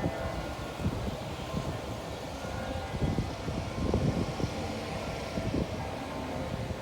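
Church bells ringing in the distance, their steady tones half buried under gusty wind buffeting the microphone.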